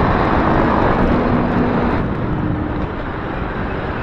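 A small motorcycle riding along: a steady rush of wind and road noise with the engine's faint drone beneath it, easing a little about two seconds in.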